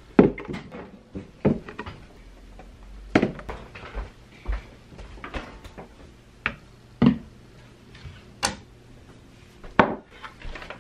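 A series of scattered knocks and thuds, about eight in all, as paper cartons of half-and-half, oat milk and chai concentrate are taken from the refrigerator and set down on a counter, and the refrigerator door is closed.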